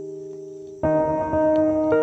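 Slow ambient background music: held chords that fade, with a new chord sounding a little under a second in and another near the end.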